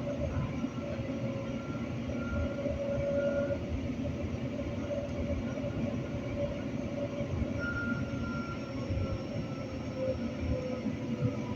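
Edmonton LRT light-rail car running along the track, heard on board: a steady rumble with thin whining tones that come and go, one falling slightly near the end.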